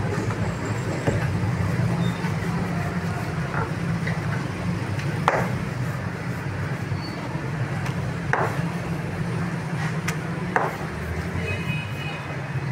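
A wooden rolling pin rolls out thin samosa-patti dough on a marble slab, with a few sharp knocks of wood on stone, over a steady low background rumble.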